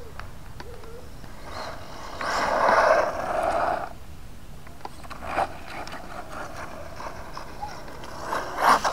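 Electric RC 4x4 truck with a brushless motor driving on asphalt: a whirring run of motor, gears and tyres rises loud for about two seconds as it passes close. Near the end come a few sharp knocks and scrapes as it reaches the curb.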